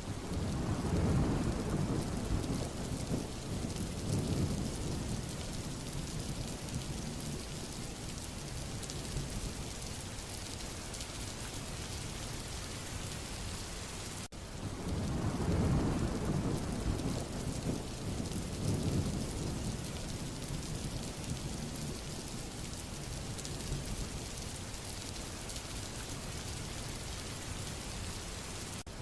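Steady heavy rain falling, with deep rumbles of thunder rolling in near the start and again about halfway, just after a brief dropout in the sound.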